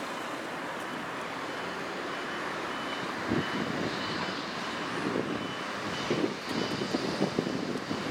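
Huddig 1260B backhoe loader working, its engine running steadily with irregular clanks and scraping of the bucket and arm. A reversing alarm beeps about twice a second.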